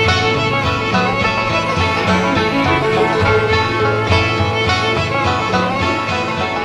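Background bluegrass music with banjo, guitar and fiddle over a steady beat.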